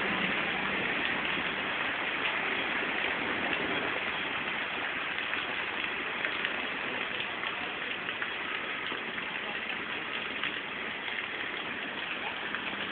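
Heavy rain falling hard and steadily, thick with sharp ticks of drops striking hard surfaces.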